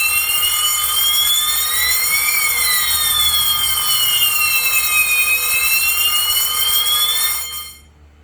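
Electronic fire alarm sounder of a CST fire detection and alarm system wailing, its pitch sweeping slowly up and down over steady high tones. It has been set off in a test by a smoke detector sprayed with canned test smoke. It cuts off suddenly about seven and a half seconds in.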